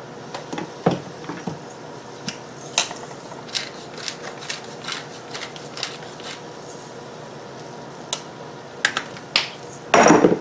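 Salt and pepper being put onto raw chicken wings: a run of irregular short ticks and taps from the seasoning containers, then a louder clatter near the end.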